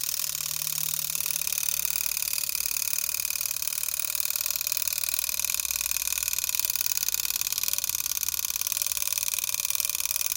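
Haller Beatall mechanical alarm clock's alarm ringing nonstop, its hammer striking very fast and evenly. It runs freely with nothing stopping it, unwinding the alarm spring.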